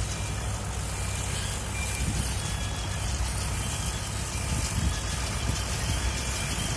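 Tractor engine running steadily with a Fimaks RB170 round baler, a continuous low rumble. Short, faint high beeps repeat now and then over it.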